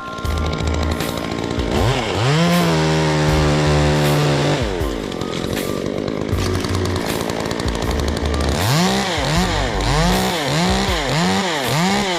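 Two-stroke chainsaw revved up to full throttle and held for a couple of seconds, then let back down. Near the end it is blipped up and down about six times in quick succession. Music with a steady beat plays underneath.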